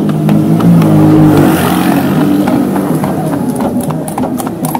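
A motor vehicle passing close by with its engine revving, loudest in the first two seconds, over the clip-clop of a carriage horse's hooves on the road.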